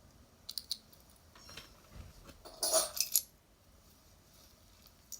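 Metal jewelry clinking and rattling as pieces are picked up and set down, with a few light clicks early and a louder clatter about two and a half seconds in.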